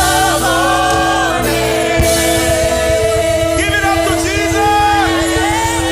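Gospel worship song performed with singing over instrumental accompaniment, with long held chords beneath the voice.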